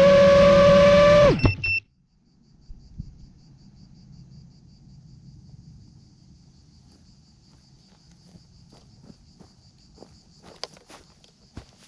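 FPV drone motors whining at a steady pitch, then spooling down and cutting out about a second in, followed by two short electronic beeps. After that, crickets chirping faintly with a low rumble and a few clicks near the end.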